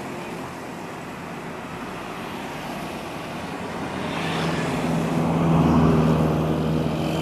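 Road traffic with a motor vehicle's engine hum that grows louder from about four seconds in, is loudest near six seconds as the vehicle passes, and then eases off slightly.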